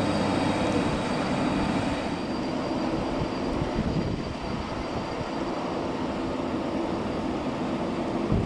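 Steady engine noise, a continuous rush with a faint high whine, easing slightly about two seconds in.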